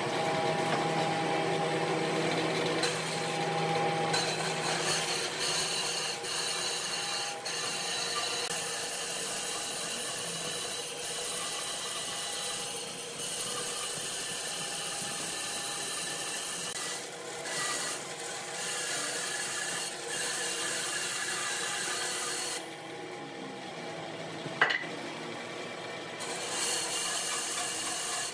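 A power tool working on wood, running steadily. It drops off briefly near the end, with one sharp click, then runs again.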